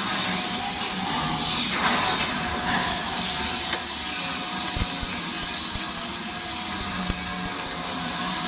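Flux-cored arc welding on a steel I-beam: a steady hiss.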